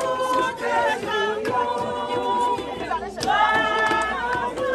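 A group of voices singing a hymn together without instruments, in long held notes.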